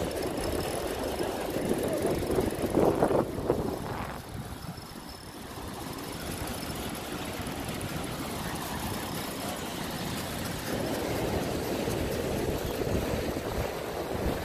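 Wind buffeting a handheld phone microphone while moving along the beach: a rough, fluctuating rumble, with a louder gust about three seconds in and a brief lull just after.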